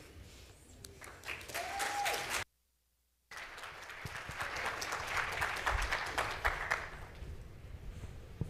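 Audience applauding, broken by a second of dead silence about two and a half seconds in, then picking up again and dying away near the end.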